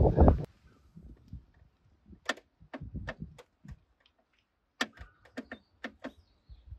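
Metal trim removal tool clicking and catching against the plastic top of a new car battery while prising out its stiff vent bung: a scatter of sharp clicks in two runs of about half a dozen each.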